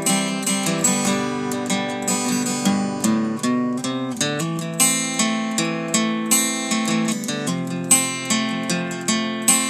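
Solo acoustic guitar instrumental played on a Taylor W14: a steady run of plucked notes ringing over one another.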